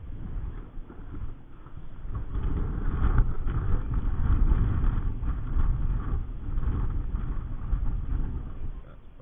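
Strong wind buffeting the microphone: a low, gusting rumble that swells about two seconds in and eases near the end.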